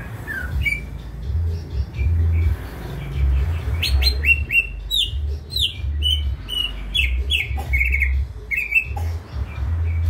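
Male greater green leafbird (cucak hijau) singing: a couple of single notes at first, then a quick run of short, downward-slurred whistles for several seconds. A steady low rumble runs beneath the song.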